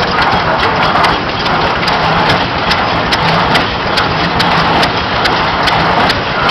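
Water gushing out of a reciprocating water pump's outlet pipe into a metal tank, a heavy splashing that swells and eases about once a second with the pump's strokes. Sharp clicks and clatter from the pump's mechanism sound over it, with an engine running underneath.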